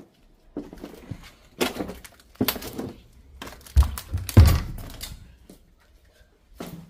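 Footsteps and scuffs on a debris-strewn floor in an empty room, with two heavy thumps about four seconds in, roughly half a second apart.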